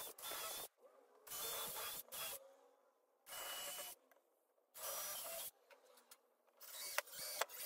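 Cordless drill boring pilot holes into pine 2x4 tabletop boards: several short bursts of about half a second each with pauses between, then a few sharp clicks near the end.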